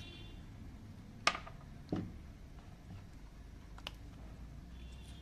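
Hands handling small green fruit over a plastic bowl: a few separate sharp clicks and one duller knock, over a low steady hum.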